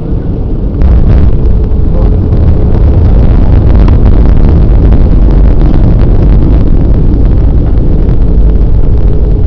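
Airbus airliner's engines and runway rumble heard from the cabin during the landing roll. The noise jumps suddenly to a loud rumble about a second in and holds there, with rattling and jolts.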